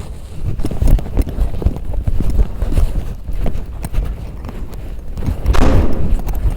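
Footsteps walking in a steady rhythm of knocks, over a low rumble on the microphone, with a louder rushing noise about five and a half seconds in.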